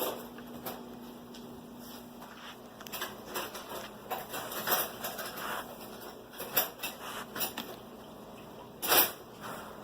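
Dog nosing through the pockets of a fabric enrichment mat after hidden treats: irregular short rustles and sniffs, with a louder burst about nine seconds in.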